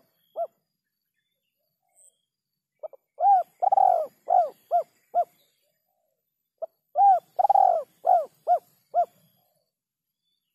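Spotted dove (terkukur) cooing: two calling phrases, each a run of five or six coo notes with one longer, drawn-out coo near the start of the phrase, separated by a few seconds of silence.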